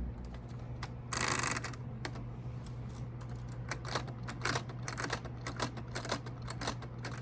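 Keys of a brick-built LEGO typewriter being typed: an irregular run of plastic clacks, several a second, with a brief rasping noise about a second in.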